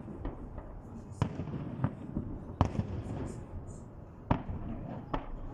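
Salute fireworks bursting: about six sharp bangs at irregular intervals, each trailing off in a short echo.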